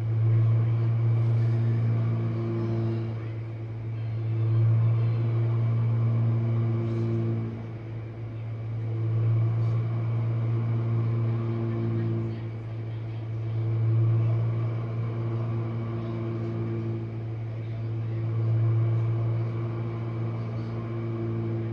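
Jenn-Air dishwasher running its main wash: a steady low hum from the wash pump motor with water spraying inside the tub. The sound swells and fades about every four to five seconds.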